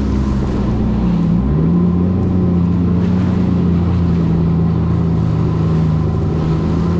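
Jet ski engine running at speed, with water rushing under the hull. Its note climbs a little about a second in, then holds steady.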